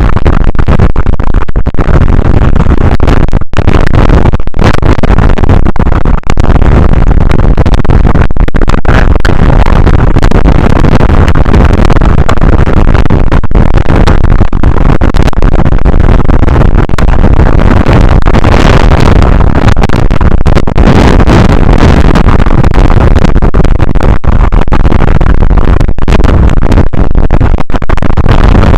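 Strong wind buffeting the microphone, a continuous heavy rumble that overloads the recording and stays at full loudness throughout, with brief momentary dropouts.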